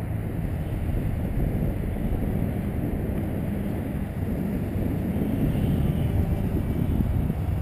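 Wind buffeting the microphone as a steady low rumble, with the faint whine of the electric motor and propeller of a small foam flying wing (a Stryker F-27 clone) coming through briefly as it passes closer, about six seconds in.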